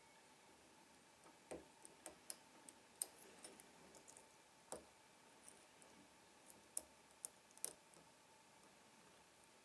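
Faint, sharp, irregular clicks of a lock pick working the pins inside a Trioving 5632 padlock during single pin picking. A dozen or so clicks come in uneven clusters and stop over a second before the end.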